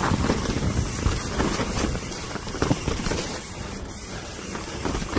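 Mountain bike descending a dirt trail at speed: wind rushing over the camera microphone, tyres rolling on dirt, and the bike clattering with scattered short knocks over bumps.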